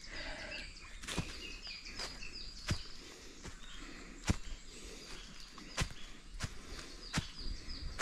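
Footsteps along an overgrown forest trail, with a sharp click or twig snap about every second. High, short chirps repeat quickly in the background.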